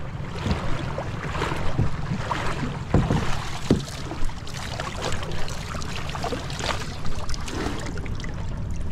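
Shallow seawater splashing and sloshing as someone wades beside a wooden outrigger boat and climbs aboard, with scattered short knocks and splashes.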